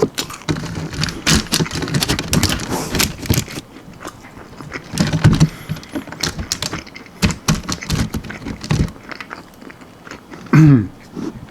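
Close-up crunching and chewing of crispy almond-flour-breaded fried chicken wings, with irregular crackles throughout and a short hum of the voice near the end.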